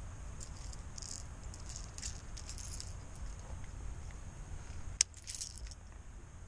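Light, irregular rattling and ticking from a baitcasting rod, reel and lure being handled, with one sharp click about five seconds in. Low wind rumble on the microphone underneath.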